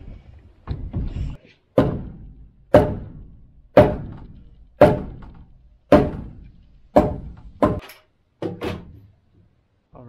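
A hammer striking the wooden beam, about one heavy blow a second, seven in a row, then two lighter taps near the end.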